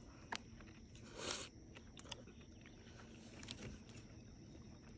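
Faint chewing of a mouthful of burger, with a few soft mouth clicks and a short breath-like rush about a second in.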